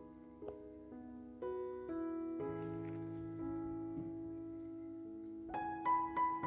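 Background piano music: slow, sustained chords with new notes struck every second or so, and a few brighter high notes near the end.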